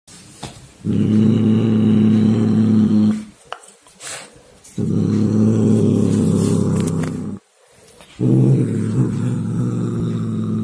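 Siamese-mix cat giving three long, low growls, each two to three seconds with short breaks between, while clamping a ribbon toy in its teeth: a possessive growl over a caught toy.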